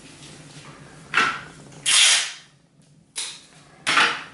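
Sellotape being pulled off the roll in four short, rasping rips, the loudest and longest about two seconds in.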